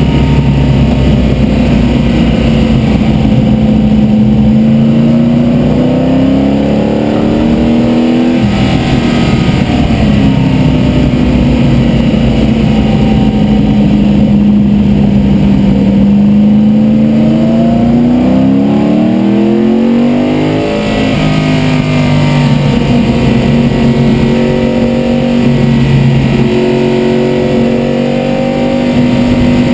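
A carbureted race car's engine heard from inside the cockpit under hard running. Its note climbs and then drops sharply twice, about eight and about twenty seconds in, and runs lower and steadier after the second drop.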